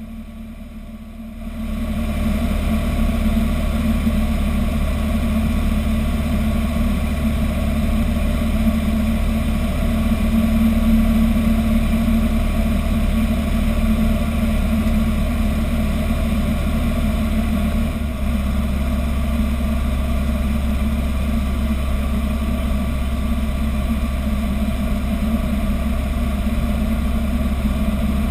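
Robin DR400 light aircraft's piston engine and propeller running steadily at approach power, heard from inside the cockpit. The sound comes up in level about two seconds in.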